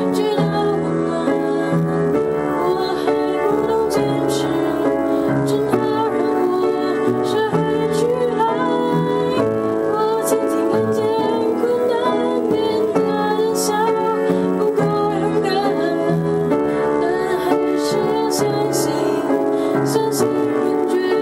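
Piano played in sustained chords, with a woman's voice singing a melody over it.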